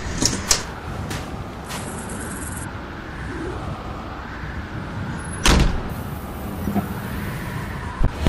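A large truck idling with a low, steady rumble. Several small knocks, then one loud sharp bang about five and a half seconds in.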